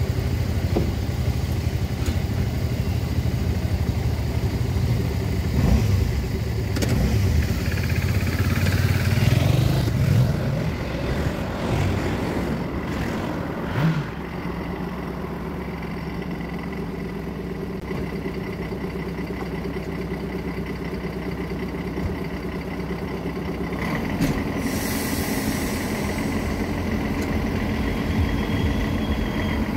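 Diesel engine of a class 810 (M 152.0) railbus running close by, loud for the first dozen seconds. It drops to a steadier, quieter idle after a knock about 14 seconds in. Road cars pass over the crossing in the second half.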